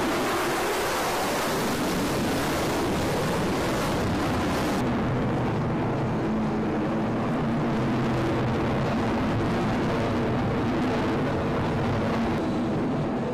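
F-35 fighter jet's engine noise passing overhead, a loud steady rush with low tones underneath; the sharper hiss falls away abruptly about five seconds in.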